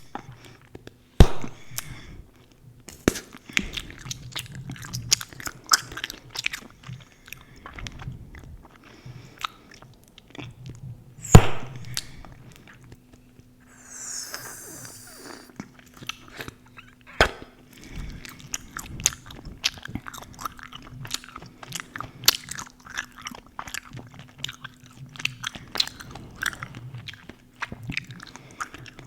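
Close-miked chewing gum being chewed: a steady run of wet smacks and small clicks, broken by a few sharp loud pops of gum bubbles bursting, one about a second in and another near the middle.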